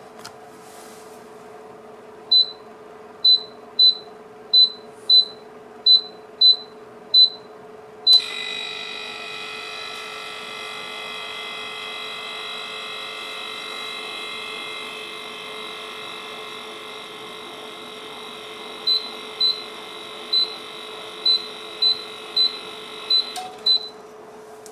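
Solayce PD12R-02EE dehumidifier running with a steady hum, while its control panel gives a series of short high beeps. About eight seconds in it switches to a louder run with several steady high whining tones, which lasts until near the end, when another run of beeps comes and it drops back to the quieter hum; far noisier than the 35 dB stated in its user manual.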